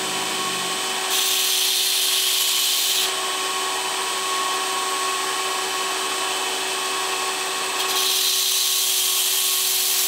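Wilmont belt grinder running steadily, with a knife edge ground against the moving abrasive belt in two passes while being sharpened in a jig. Each pass is a harsh grinding of about two to three seconds, the first starting about a second in and the second near the end.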